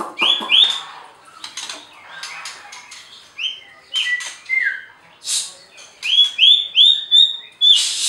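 White-rumped shama (murai batu) singing: a string of clear whistled notes and short sweeping calls, ending in a run of about five quick rising whistles.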